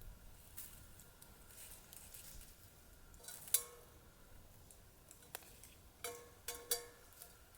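Light clinks of metal cookware, each ringing briefly: one about halfway through and two close together near the end, with a few softer ticks between.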